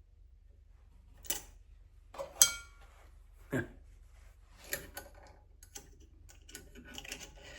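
Scattered clicks and metal clinks of small brake master cylinder parts being handled and fitted, the loudest a short ringing clink about two and a half seconds in, with lighter ticks near the end.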